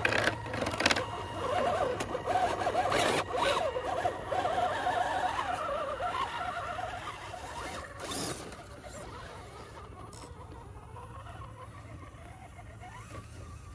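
Electric drive motor and gears of an RC scale crawler truck whining, the pitch wavering up and down as it is throttled slowly over rocks, with a few sharp knocks on the stone. It goes quieter about eight seconds in, with a short rising whine near the end.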